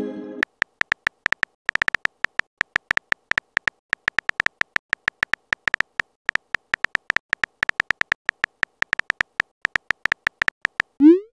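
Rapid keyboard-tap clicks from a texting-app typing sound effect, several short ticks a second as a message is typed letter by letter. A pitched message-sent chime fades at the start, and a short rising swoop of the next send sound begins near the end.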